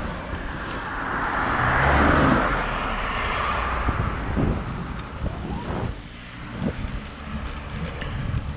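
A car passing close by, its engine and tyre noise swelling to a peak about two seconds in and then fading away.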